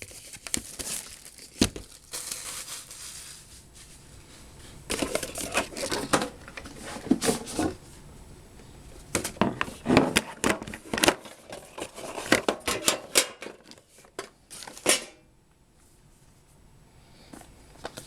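Plastic wrapping being torn and crumpled off a box of trading cards, in bursts of crinkling and crackling that stop a few seconds before the end.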